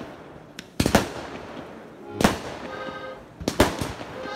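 Consumer aerial fireworks bursting overhead: several sharp bangs, a pair about a second in, one about two seconds in and another close pair near the end, each with a short echoing tail.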